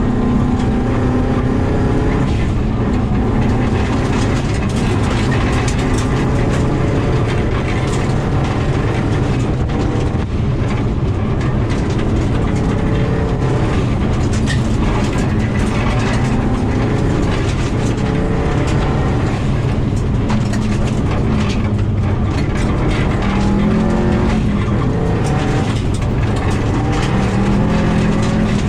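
Interior sound of a 2000 Subaru WRX's turbocharged flat-four engine driven hard on a gravel rally stage, its pitch rising and falling with throttle and gear changes, over constant tyre and gravel noise with scattered clicks of stones hitting the car.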